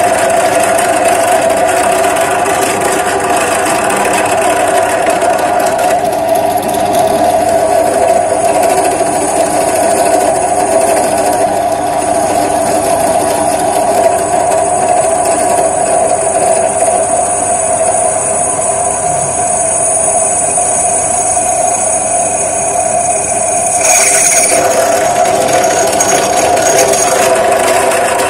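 Bench drill press motor running steadily while a small twist bit cuts through the wall of a square hollow steel tube, with a thin high whine from the cutting in the middle stretch. About 24 seconds in there is a short, harsher burst.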